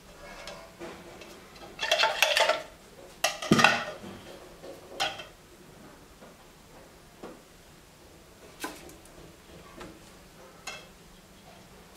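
Ice cubes dropped into a stainless steel cocktail shaker tin, clinking in two quick clusters about two and three and a half seconds in, with one more clink near five seconds. A few faint single clicks follow.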